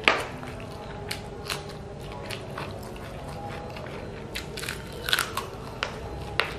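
Biting and chewing crunchy food: a sharp loud crunch right at the start, then scattered smaller crunches and mouth clicks, thickest about five seconds in.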